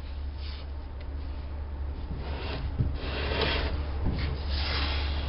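Several short rubbing or scraping sounds, the longest about three seconds in, over a steady low hum.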